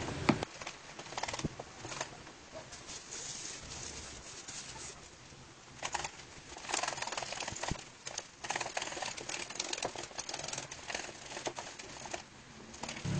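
Butter and cocoa being whipped by hand in a mixing bowl: quick, irregular clicks and scrapes of the utensil against the bowl, coming in bursts with short pauses between.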